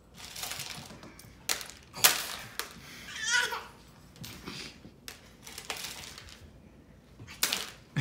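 A series of short, sharp sneezes, the loudest about two seconds in, with a toddler's giggle just after three seconds.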